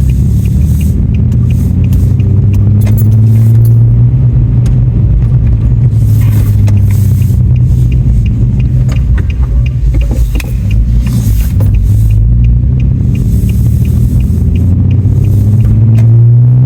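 Pickup truck's engine running as it drives, a steady low hum whose pitch drifts up and down with engine speed.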